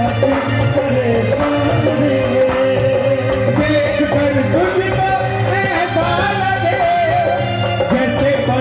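Live devotional kirtan music played loud through a sound system: a wavering melody over a steady, even beat.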